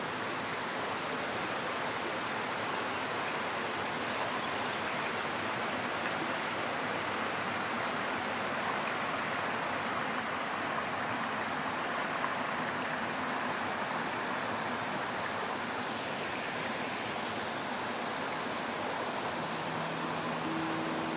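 Steady rushing of stream water with a continuous high-pitched insect trill over it. Near the end, low sustained music notes come in.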